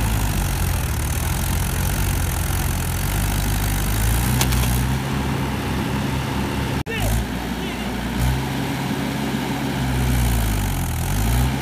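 Mahindra tractor's diesel engine running under load, its pitch swelling up and down as the driver revs it while the tractor is stuck in deep mud.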